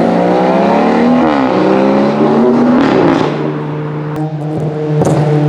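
Race car engine revving hard, its pitch shifting up and down in the first couple of seconds, then holding a steady note, with a few short exhaust pops near the end.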